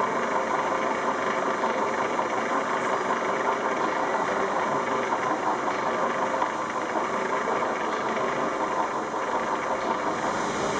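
Electric barring engine running steadily, its motor and belt drive slowly turning over an 1878 Godard & Massey compound rotative beam engine, with a continuous mechanical hum and rumble.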